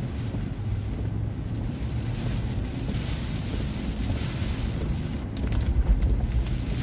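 Steady car-cabin noise while driving slowly through hurricane rain: low engine and road rumble, with rain on the windshield and the wipers sweeping across it.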